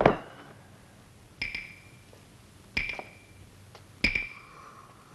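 A sharp thud at the start as a body hits the ground in the fight. It is followed by three short metallic pings spaced about a second and a half apart, each ringing briefly.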